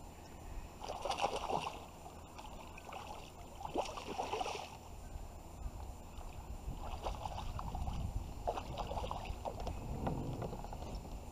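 Knocks and rattles from a fishing kayak and its gear as the angler moves about and works his rod, in several short bursts over a steady low rumble.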